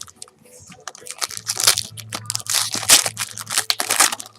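Foil wrapper of a Panini World Cup trading-card pack being torn open and crinkled: a run of dense, rapid crackling.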